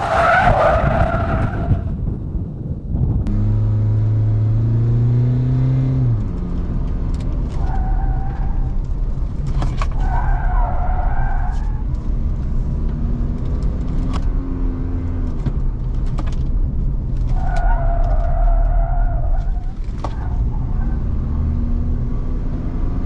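Pickup truck swerving hard through a handling test: the tyres squeal in several bursts over the engine's rising and falling note and a steady road and wind rumble, with a few short clicks.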